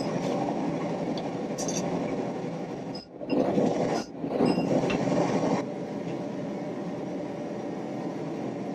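Atlas propane forge burner running with a steady rushing noise, louder for a couple of seconds mid-way, with a few light clinks of steel tools on the anvil.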